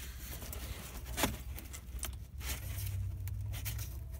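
Rubbing and scraping of a hand and arm against the plastic wheel-well liner while reaching in to the fog-light bulb, with one sharp click about a second in and smaller ticks later.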